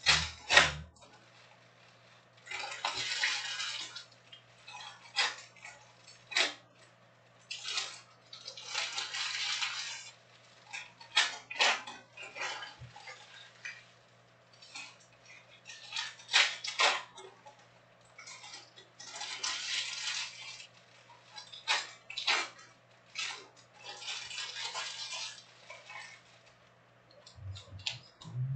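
Foil-wrapped trading card packs crinkling as they are handled, with sharp taps as packs are set down onto stacks of packs. The crinkles come in patches of about a second every few seconds, with clicks in between.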